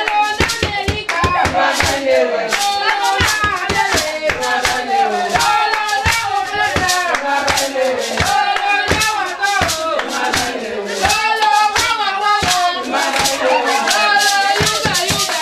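A group of women's voices singing together over a quick rhythm of hand clapping.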